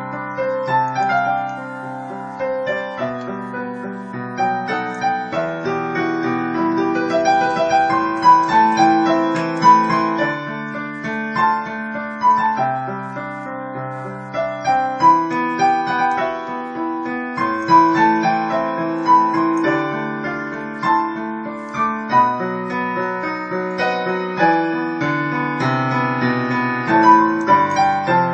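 Dynatone DPR-3160 digital piano played solo: a melody over sustained chords, with notes following one another without a break.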